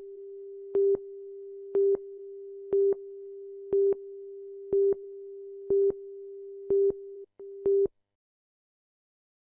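Countdown-clock tone at the head of a TV commercial: a steady single tone with a louder beep once a second as the clock counts down. It breaks briefly and stops about eight seconds in.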